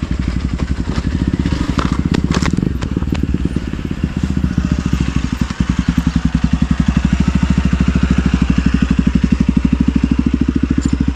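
Single-cylinder off-road motorcycle engine running at a steady low idle close by, with an even, rapid exhaust pulse. A few sharp clicks and knocks come about two to three seconds in.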